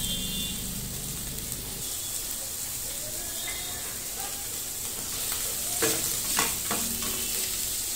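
Chopped onion and meat sizzling in oil in a nonstick frying pan. From about six seconds in, a spatula stirs the pieces, with several sharp scrapes and knocks against the pan.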